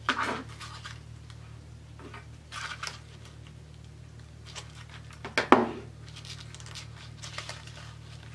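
Handling noise of an artificial poinsettia's fabric leaves being scratched and rustled while hot glue is run along them, over a low steady hum. One sharp knock about five and a half seconds in is the loudest sound.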